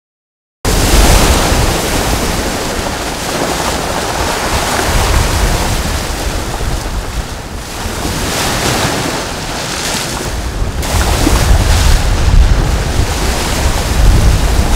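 Lake waves washing and breaking over a pebble shore, with wind buffeting the microphone as a deep rumble. It cuts in suddenly under a second in and rises and falls as the waves come in.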